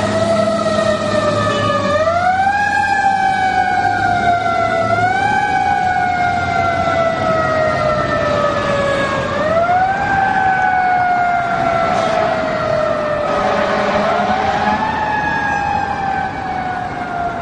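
Fire engine siren wailing. Its pitch jumps up quickly and then slides down slowly, about four times over, under the low rumble of the truck's engine in the first few seconds. The siren grows a little fainter near the end as the engine drives away.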